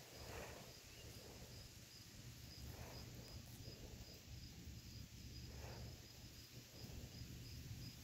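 Faint outdoor ambience with a high, thin insect chirp pulsing in a steady rhythm, and a few soft, brief rustles.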